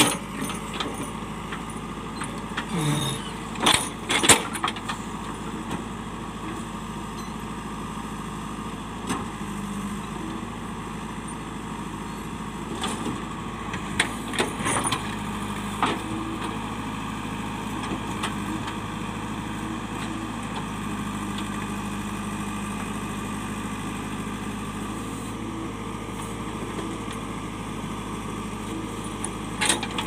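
JCB backhoe loader's diesel engine running steadily while its steel digging bucket knocks and scrapes against rock slabs, with the sharpest knocks about four seconds in, again around fourteen to sixteen seconds in, and just before the end.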